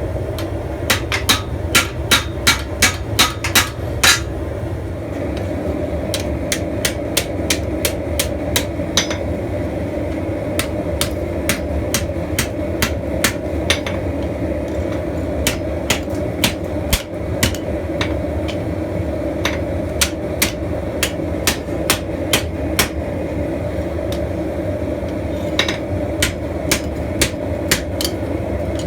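Blacksmith's hammer striking hot steel on an anvil, in runs of blows about two a second broken by short pauses, over a steady low roar.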